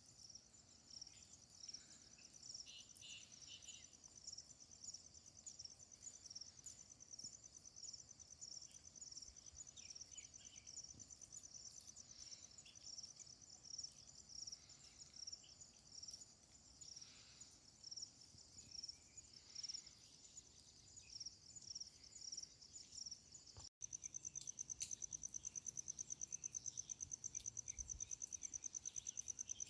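Insects chirping in a high, pulsing chorus. About 24 s in, after a brief dropout, it changes to a louder, continuous high trill.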